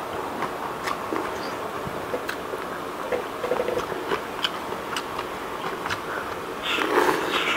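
Close-up mouth sounds of a person eating noodles: wet chewing with scattered small clicks, and a louder slurp of noodles near the end.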